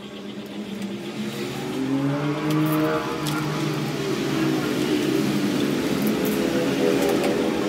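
A vehicle engine running, revving up about two seconds in and then holding at higher revs, growing louder.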